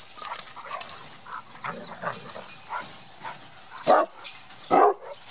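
Dogs at play, giving two short, loud barks about a second apart near the end, after quieter scattered sounds.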